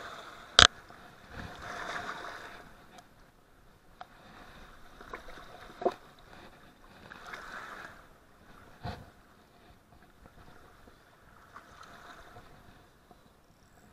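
Knocks and scuffs of someone clambering over riprap boulders, the sharpest and loudest a single hard knock about half a second in, with a couple of lighter knocks later. Rushing river water runs underneath, swelling and fading.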